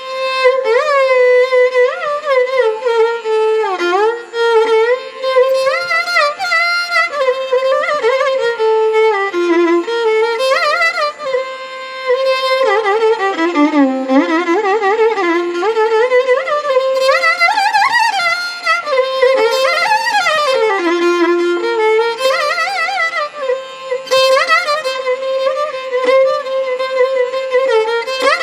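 Background music: a solo melody played with sliding, ornamented notes.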